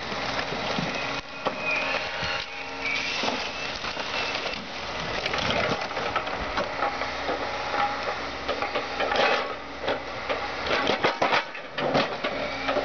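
Excavator's diesel engine running steadily while the sheet-metal body of a Volkswagen Jetta Mk2 creaks, squeals and crunches under it, with irregular sharp cracks that come thicker toward the end.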